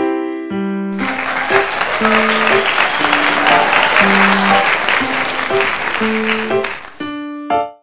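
Light electric-piano background music, with a burst of applause laid over it from about a second in until shortly before the end.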